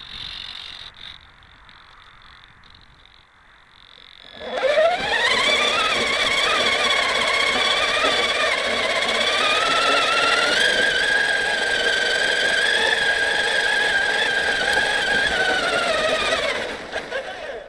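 Traxxas Summit RC truck's electric motor and geared drivetrain whining, heard close-up from the hood. The whine rises quickly as the truck accelerates about four and a half seconds in, holds with small wavers in pitch while it drives through snow, and falls away near the end as it slows.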